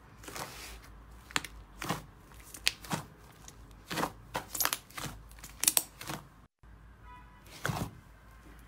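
Thick slime being kneaded and squeezed by hand in a plastic basin: a run of about a dozen separate wet squelches and pops at uneven intervals.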